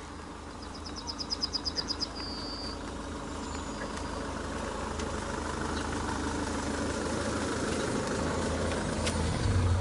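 Car engine idling steadily, slowly getting louder. About a second in, a brief high trill of rapid ticks, then a short high note.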